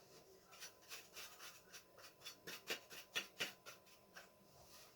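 Faint scratching and light clicks of small gas-stove burner parts being handled and seated by hand, a string of short strokes, two or three a second, that stops about four seconds in.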